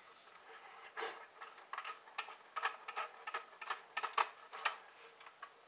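Handling noises: a string of irregular small clicks, taps and rustles, about a dozen over the few seconds, from things being handled at close range.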